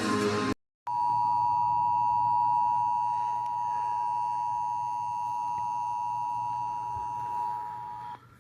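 Emergency Alert System attention signal: two steady tones sounding together (853 and 960 Hz) for about seven seconds, then cut off abruptly. It follows a brief moment of guitar music that stops dead and a short silence.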